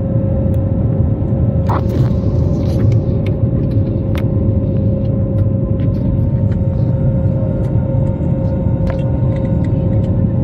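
Cabin noise of an Airbus A320-family airliner climbing after take-off: a loud, steady rumble of the turbofan engines and airflow with a steady hum-like tone held throughout, and a few faint clicks.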